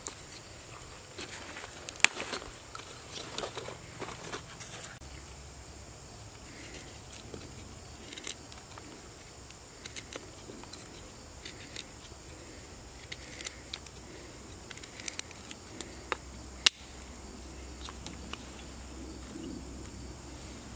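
Small dry sticks handled and carved with a knife: irregular sharp clicks, snaps and scrapes of blade and wood. The loudest clicks come about two seconds in and about three-quarters of the way through.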